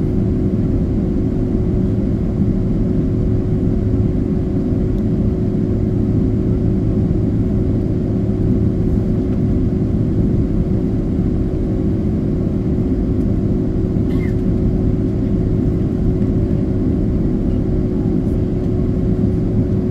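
Boeing 767-300 airliner heard from inside the passenger cabin: a steady, loud drone of engines and airflow with a constant hum in it.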